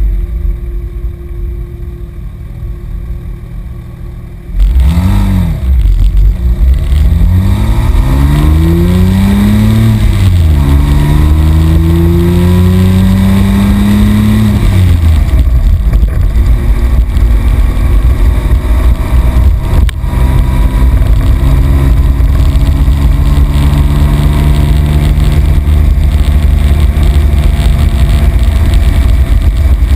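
Porsche 997.1 GT3's flat-six heard at the tailpipes through a GMG World Challenge exhaust system (headers, sport cats, centre section) while the car is driven. After a few quieter seconds the engine gets loud about five seconds in. Its pitch climbs in three rising pulls, each cut by a brief drop, then falls away about halfway through and settles into a steady cruising drone.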